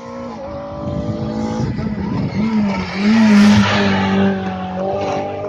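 Rally car going past at speed on a special stage, its engine note rising and falling as it revs through the gears. It is loudest about three to four seconds in as it passes close, with tyre noise.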